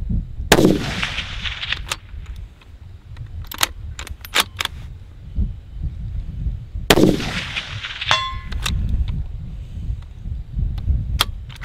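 Two shots from a .308 Ruger Precision Rifle, about six and a half seconds apart, each followed by clacks of the bolt being worked by hand. The bolt runs stiffly as it feeds steel-cased rounds from a Magpul D50 drum magazine. A brief ringing note comes about a second after the second shot.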